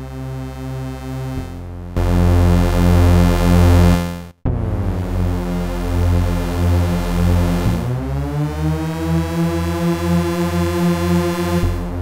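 Behringer Vintage software synthesizer playing a preset: held, rich chords that change every couple of seconds, with a brief break about four seconds in and a glide in pitch near eight seconds.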